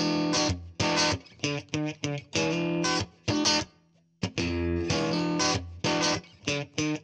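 Intro music of short, choppy chords that stop and start, with a brief pause about four seconds in.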